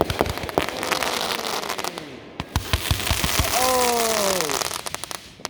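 Consumer fireworks going off: a string of sharp cracks and pops, a dense wash of hiss and crackle through the middle, and a whistle falling in pitch about three and a half seconds in.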